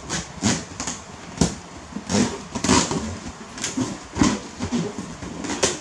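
A rubber balloon being gripped and rubbed by hands, giving a series of short, irregular squeaks and scuffs.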